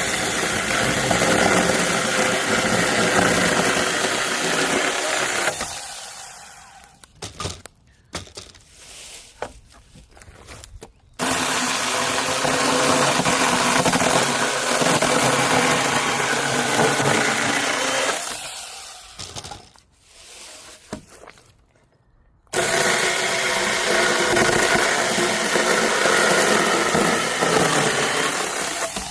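6-inch cordless mini chainsaw cutting firewood in three runs, each starting abruptly, running steadily for about six seconds and winding down as it stops. Short knocks and clatter of wood being handled come between the cuts.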